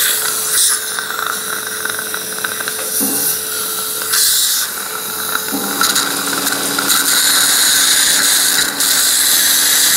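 Surgical contra-angle handpiece turning an implant twist drill through a guide sleeve into the jawbone. It gives a steady motor whine that drops in pitch a little past halfway, over a continuous hiss.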